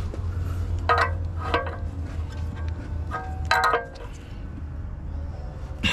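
An AN wrench working a fitting under the car to cap the open -10 AN oil pan port, making three sharp metallic clinks with a brief ring, about one, one and a half and three and a half seconds in, over a steady low hum.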